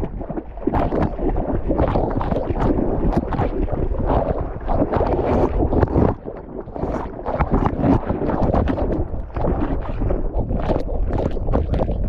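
Water splashing and rushing right at a GoPro worn by a dog, with wind buffeting the microphone; irregular splashes keep coming.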